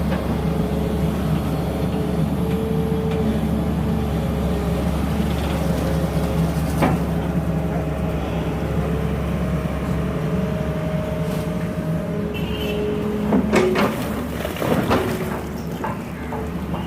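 Sany 220 hydraulic excavator working: its diesel engine runs steadily under a hydraulic whine that shifts in pitch as the machine moves. A sharp metallic clank about halfway through, and a few louder clanks near the end.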